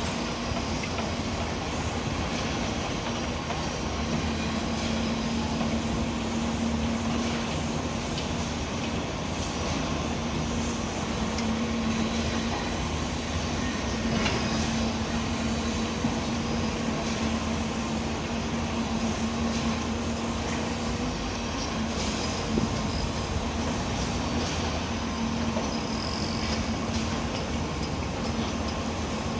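Heavy machinery at a concrete pour running steadily: a continuous engine drone with a constant hum, and a few knocks.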